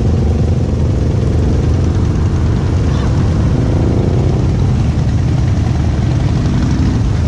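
Motorcycles riding past at low speed in a steady stream, their engines running loud and continuous, with one engine note fading away about four seconds in.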